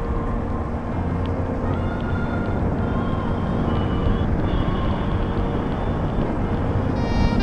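Yamaha Sniper 150's single-cylinder four-stroke engine running steadily at cruising speed, with wind rushing over the onboard microphone. A short high-pitched tone comes in right at the end.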